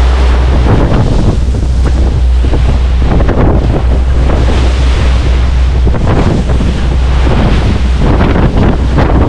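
Spray and foaming bow wave rushing along the hull of a fast-running pilot boat in choppy sea, with heavy wind buffeting on the microphone. The rush of water swells and eases several times as the hull meets the waves.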